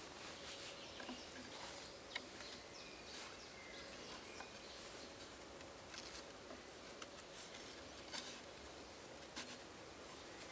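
Thin green twigs handled and bent around a stick frame: faint rustling with a few light, sharp clicks and snaps spread through. Birds chirp faintly in the background.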